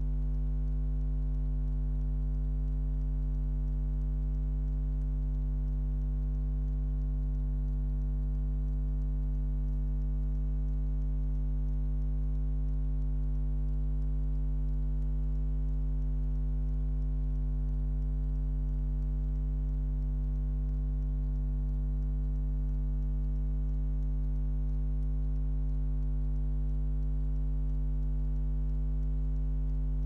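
Steady electrical mains hum from the washing machine, switched on abruptly just before and holding unchanged, with no drum tumbling.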